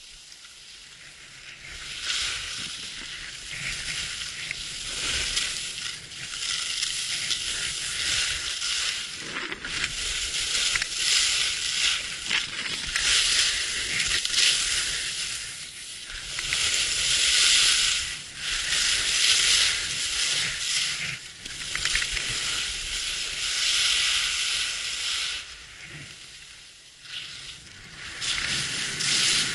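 Skis scraping and carving on hard-packed snow on a downhill run, a hiss that swells and fades with each turn. It quietens briefly near the end before picking up again.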